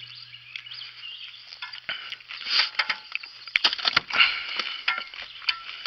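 Close, irregular clicks, taps and rustles of a freshly caught bream and fishing gear being handled in a small boat, over a faint low hum.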